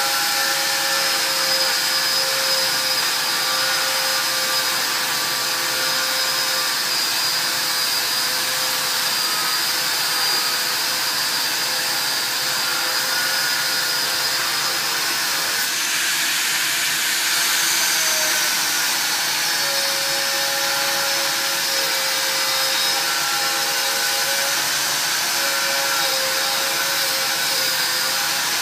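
Hand-held angle grinder grinding steel, a steady high whine over harsh grinding noise, its pitch dipping briefly past the middle, mixed with the air rush of a TEKA Filtoo fume extraction unit drawing the sparks away.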